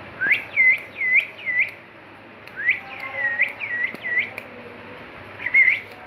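Rose-ringed parakeet whistling: short, clear notes that each dip and rise again, in three runs, about four quick notes, then five, then one more near the end.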